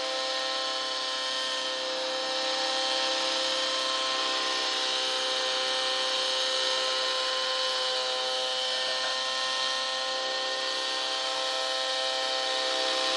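Align T-Rex 700 nitro RC helicopter's engine and rotors running: a steady, high-pitched whine. It gets a little louder about two seconds in as the helicopter comes down to hover low.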